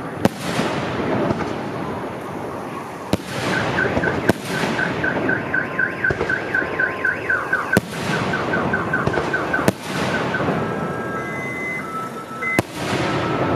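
Aerial fireworks shells bursting with several sharp bangs over steady crackling. A car alarm joins about three seconds in, chirping rapidly at about four chirps a second. It changes its pattern partway and switches to steady alternating tones near the end.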